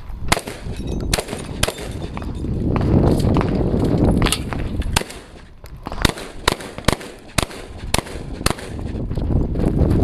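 A handgun fired in fast strings of shots, many in quick pairs with short pauses between strings, and a low rumble swelling under the shots in places.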